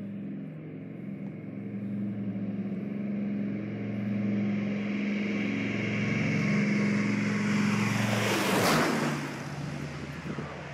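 Douglas DC-4's four radial piston engines at takeoff power, a steady drone growing louder as the airliner lifts off low and comes straight on. About nine seconds in it passes overhead with a loud rush, then the drone drops in pitch and fades as it flies away.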